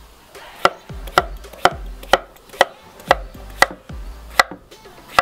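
Large chef's knife chopping a vegetable marrow into large cubes on a wooden cutting board: a steady run of about nine sharp knocks of the blade on the board, roughly two a second.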